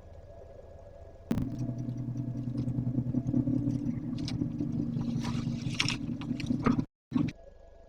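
Scraping and scratching noises close under the camera, with scattered clicks, over a steady low hum that switches on abruptly about a second in; the sound cuts out briefly near the end.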